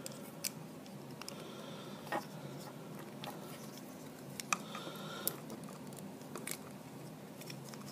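Handling noise from a small plastic Transformers Happy Meal toy (Clampdown) as its spring-loaded launching arm is pushed back in and reset: a few faint scattered clicks and rubbing of plastic.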